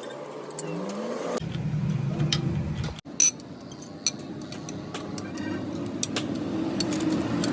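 Metal tools and engine parts clicking and clinking, with a steady machine hum under them from about three seconds in. The sound changes abruptly twice.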